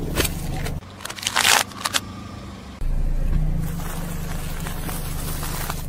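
Car tyre rolling over sealed plastic cups, with crackling and a loud crunch of plastic being crushed about a second and a half in, over the car's engine. From about three seconds in, the car engine runs steadily.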